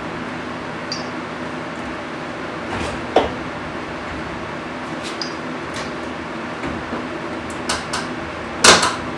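Scattered clicks, light metallic clinks and knocks of hands working on parts in a car's engine bay, with a sharp knock about three seconds in and the loudest clatter near the end, over a steady low hum.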